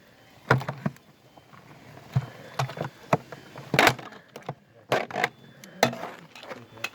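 Irregular sharp knocks and clatters of hard objects, about ten of them, unevenly spaced, with the loudest a little past the middle.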